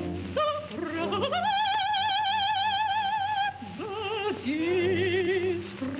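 Operatic soprano singing: a few short notes, then a long high note held with a wide vibrato for about two seconds, followed by a quick run and a held lower note.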